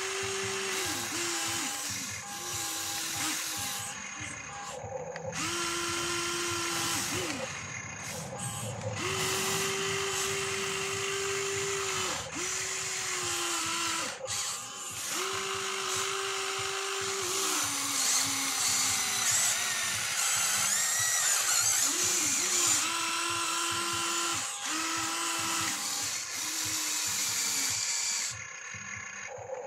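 Huina 1594 RC excavator's electric motors whining in short stop-start runs of one to three seconds as the boom, arm and bucket move while digging. Each run holds one steady pitch, and some sag lower as they stop.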